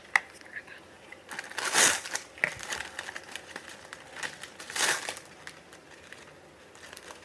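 Plastic Oreo cookie wrapper crinkling as it is peeled open and handled, with two louder rustles about two and five seconds in. A sharp tap just after the start is the loudest single sound.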